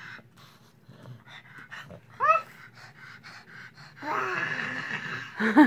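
A toddler's wordless vocal sounds: one short squeal that rises and falls about two seconds in, then a longer, louder, breathy voiced sound starting about four seconds in.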